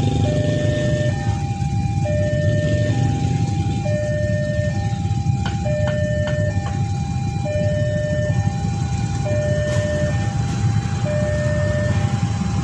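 Railway level-crossing warning alarm sounding an electronic two-note tone, a higher note and a lower note alternating over and over, as the crossing is closed for an approaching train. A steady low rumble runs underneath, with a few sharp clicks near the middle.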